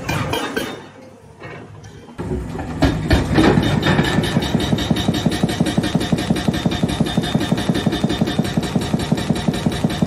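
Excavator-mounted hydraulic breaker hammering rock in rapid, evenly spaced blows, over the excavator's diesel engine running. The hammering sets in a couple of seconds in, after a brief quieter dip.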